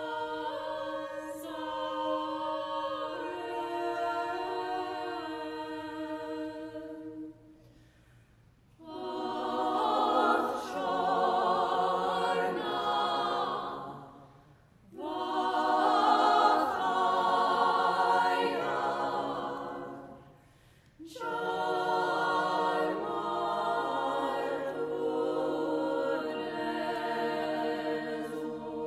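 Women's vocal ensemble singing a cappella in close harmony, in phrases separated by three short pauses for breath, louder in the middle phrases.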